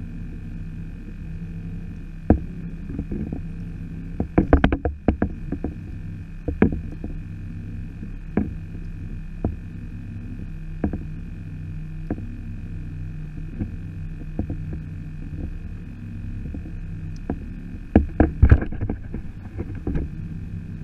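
Hollow knocks and clunks of gear against a plastic sit-on-top kayak as the rod and paddle are handled, in a cluster about four seconds in, a few single knocks after, and another cluster near the end. Under them a steady low rumble with a faint constant whine.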